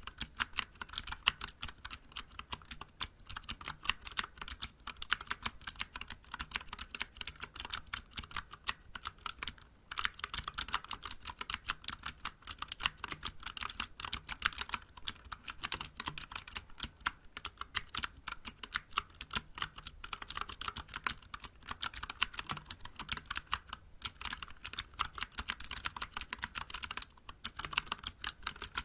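Steady fast typing on a Vortex Vibe mechanical keyboard with clicky Cherry MX Blue switches and SA-profile keycaps: a dense run of sharp key clicks, pausing briefly about ten seconds in and twice near the end.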